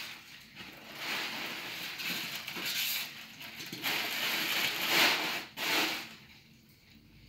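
Irregular rustling and crinkling as statue pieces are handled and fitted together during assembly, with louder swells near the middle and end that stop about six seconds in.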